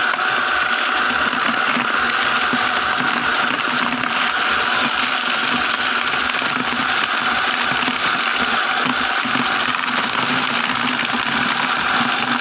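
Electric motor of a homemade bucket-style vegetable chopper running steadily with a constant whine and hum, while water spinach stems are dropped in to be chopped for chicken feed.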